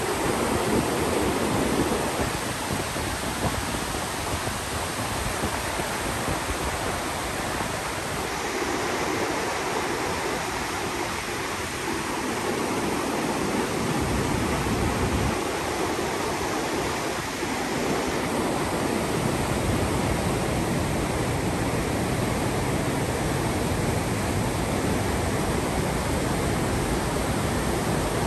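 Steady rushing of white-water rapids on the Una River, an even, unbroken wash of water noise.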